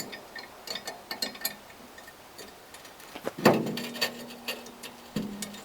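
Light metal clicks and clinks as a steel pin is fitted into a pallet buster during assembly, then a louder knock about three and a half seconds in, followed by a steady low hum and another knock near the end.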